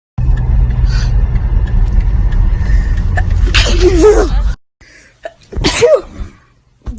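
A person sneezing twice, each sneeze a sudden burst with a short wavering voiced cry, the second about two seconds after the first. The first sneeze sits over a loud steady low rumble that cuts off suddenly just after it.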